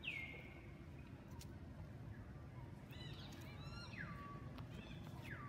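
Baby long-tailed macaque crying: high cries that drop in pitch and then hold, one at the start, a quick run of short squeaks about three seconds in sliding down into a longer cry, and another falling cry at the end.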